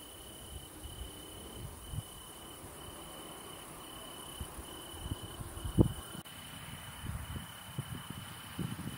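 Crickets trilling in a steady series of long pulses, about one a second, over a faint continuous high insect hiss. A few short low thumps break in, the loudest about six seconds in.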